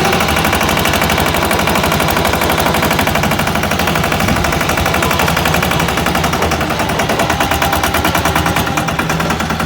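Single-cylinder diesel engine of a 'patpat' two-wheel tractor running, a fast, steady, evenly spaced train of loud knocking firing strokes.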